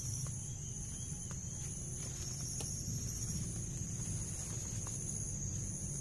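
Insects calling: a steady high buzz, with a second higher pulsing call about three times every two seconds, over a low rumble.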